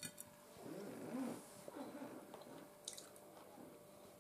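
A fork clicks once on a ceramic plate as it spears a slice of tomato, followed by faint, wet chewing of the juicy tomato.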